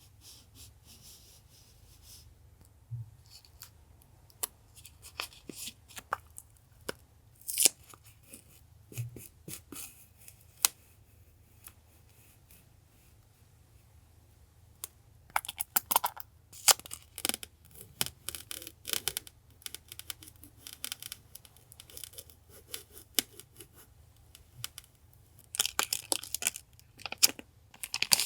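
Paper and plastic packaging crinkling and tearing as the pieces are handled. The crackles are scattered at first, then come in dense bunches about halfway through and again near the end.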